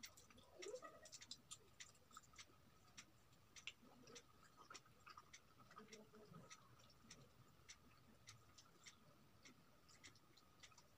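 Near silence, broken by faint, irregular clicks of a mouth chewing food, a couple every second. A faint steady high tone runs underneath.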